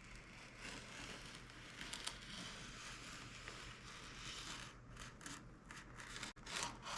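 An X-Acto hobby blade cutting through balsa wood by hand, a faint scraping. It is steady at first, then comes as separate short strokes in the last couple of seconds.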